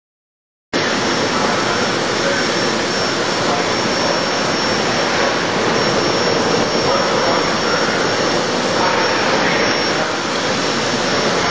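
Vacuum tube lifter's blower running, a steady loud rushing noise with a thin high whine, starting suddenly about a second in.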